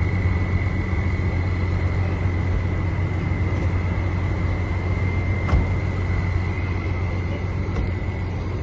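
Steady engine and road noise from a vehicle driving, with a thin steady whine over it and a single click about five and a half seconds in.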